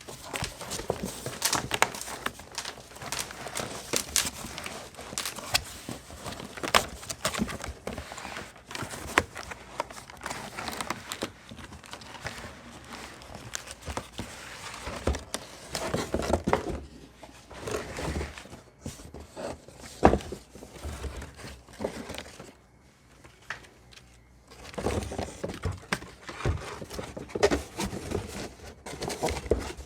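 Packaging being unpacked by hand: crinkly wrapping rustling and tearing, with scattered sharp knocks and taps. There is a short lull about three-quarters of the way through.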